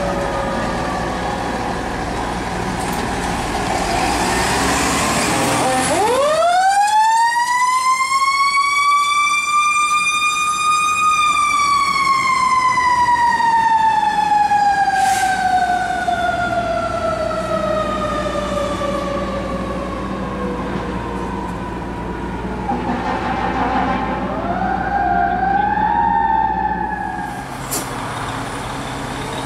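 A fire ladder truck's siren winds up from a low growl to a high wail over about five seconds, holds briefly, then slowly falls away for about ten seconds. Diesel engine and street noise come before it, and shorter rising siren tones come near the end.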